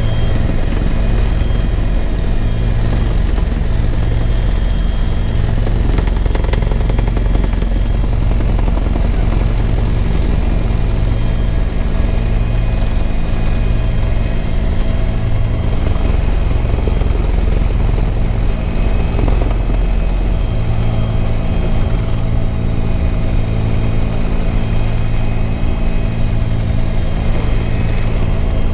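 Bell 412 helicopter in flight: steady, loud rotor and turbine noise, with a thin high turbine whine over a low throb that swells and fades every couple of seconds.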